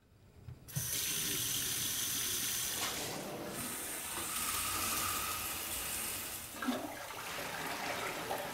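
Water running steadily from a kitchen faucet into a stainless steel sink, starting under a second in. The sound shifts about three seconds in and again near the end, as shower spray and then a toilet flush are layered in.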